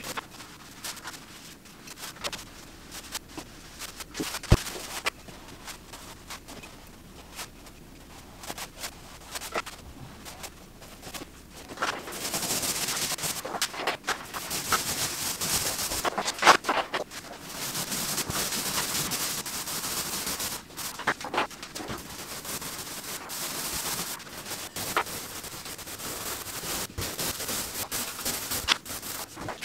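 Scattered light clicks and taps while primer is brushed on along the edges. From about twelve seconds in, a paint roller on an extension pole rolls primer onto the wall, a steady hiss broken by sharp clicks.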